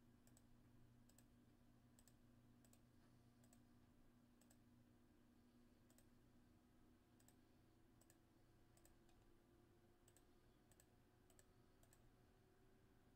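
Faint computer mouse clicks, one every half second to a second, as buttons are clicked one after another, over a faint steady low hum.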